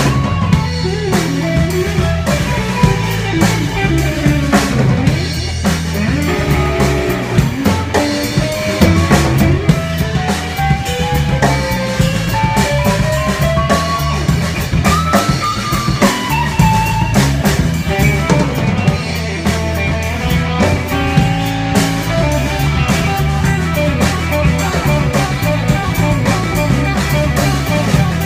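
Live band playing an instrumental passage. An electric guitar plays a lead line that slides up and down in pitch over upright bass and a drum kit.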